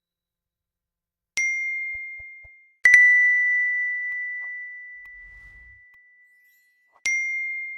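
A bright bell-like ding sound effect, struck three times: a ding about a second and a half in that fades over about a second, a louder one just before the three-second mark that rings out for about three seconds, and a third like the first near the end.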